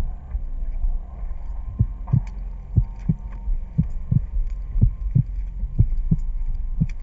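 Footsteps on hard, cracked playa crust: low, even thumps about three a second, starting about two seconds in, over a steady low rumble.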